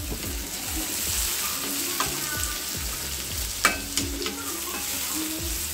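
Chopped onion, green chilli and curry leaves sizzling in hot oil in a stainless steel kadai while a wooden spatula stirs them, with a steady hiss and a few sharp knocks of the spatula against the pan about two and four seconds in.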